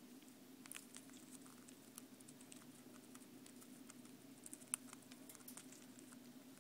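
Faint, scattered small clicks and crunches of a sun conure's beak picking at pellets in a plastic food cup, with one sharper click about two-thirds through, over a faint steady hum.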